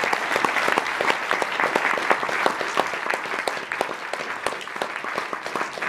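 Audience applauding: many hands clapping in a dense patter that eases off slightly over the last couple of seconds.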